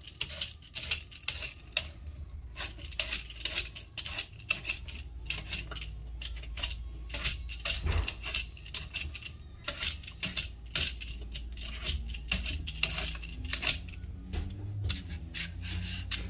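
Y-shaped metal vegetable peeler scraping strips of skin off a butternut squash, in quick, irregular strokes, about two or three a second.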